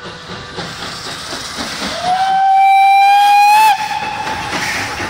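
A Pt47 steam locomotive's steam whistle sounds once for about a second and a half, sliding up in pitch as it opens and then holding steady. Under it runs a constant hiss of escaping steam as the engine gets under way.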